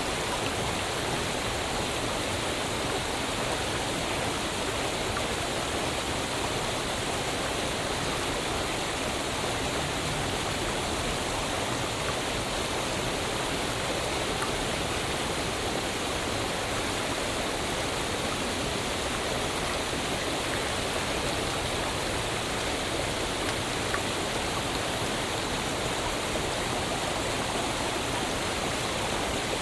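Waterfall: steady, even rush of falling water.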